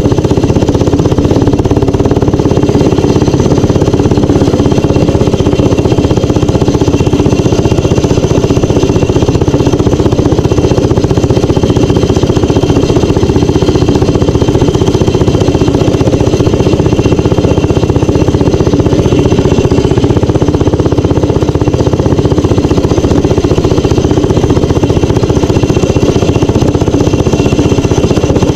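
Minibike engine running loud and steady while riding along a dirt trail.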